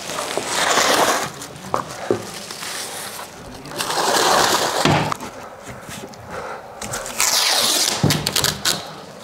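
Masking plastic and tape being handled: three bursts of crinkling, ripping noise, each about a second long, near the start, in the middle and near the end, with a few light knocks between them.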